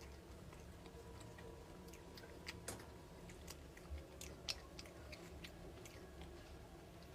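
A person chewing roll crepe cake close to the microphone: faint, scattered small mouth clicks and smacks.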